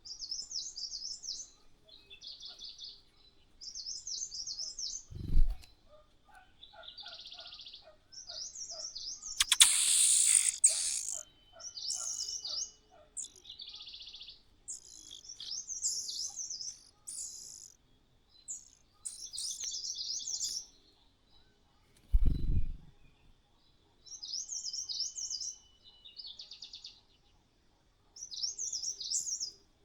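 Small songbird chirping in short, high, warbling phrases that repeat every one to three seconds. About ten seconds in there is a loud rustling burst, the loudest sound here, and there are two short low thumps, one near the start and one past the middle.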